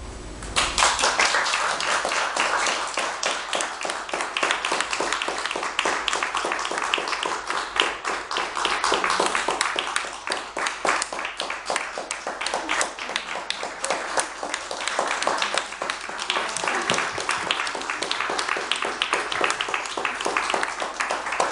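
Small audience applauding: many hands clapping in a dense, steady patter that starts about half a second in.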